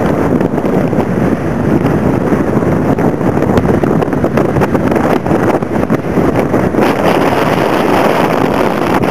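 Strong blizzard wind buffeting the microphone: a loud, unbroken rushing that swells and dips with the gusts.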